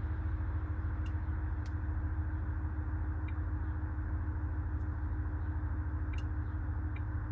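Car engine idling with a steady low drone and hum, and a few faint clicks.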